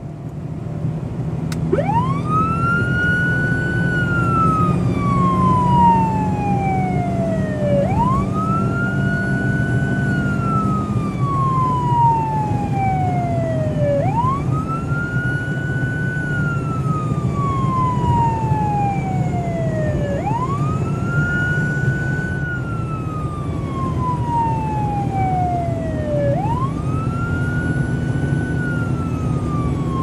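Police car running at a steady speed, heard from inside the cabin: a constant engine and road rumble, and about two seconds in the wail siren comes on, sweeping quickly up and then sliding slowly down, five times about six seconds apart.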